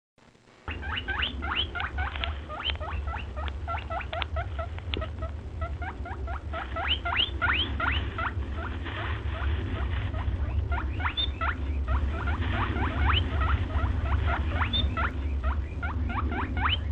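Many short, high squeaks or chirps from small animals, several a second and often overlapping, each rising quickly in pitch, over a steady low rumble. They start suddenly about a second in.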